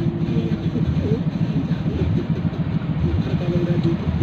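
Hitachi crawler excavator's diesel engine running steadily under load as the boom and bucket move, a continuous low rumble with a fast flutter.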